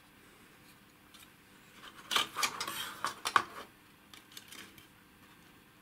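Circuit boards being handled in and out of an instrument's metal housing: a cluster of clicks and scrapes about two seconds in, then a few lighter ticks.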